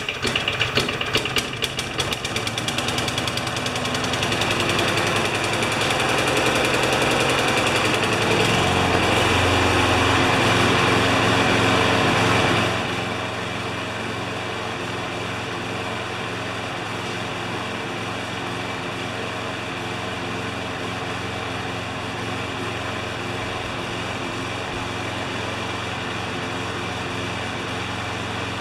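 Poulan Pro mower's 6.25 hp Briggs & Stratton engine running just after a cold start with its clogged air filter still in. It runs rough and uneven at first, grows faster and louder, then about thirteen seconds in drops to a quieter, steady run.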